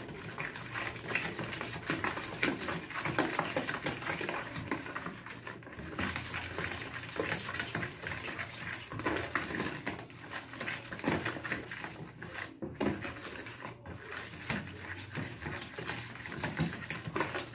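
Wooden spoon beating cake batter of eggs, oil and sugar in a plastic bowl: a steady run of quick scrapes and knocks of the spoon against the bowl.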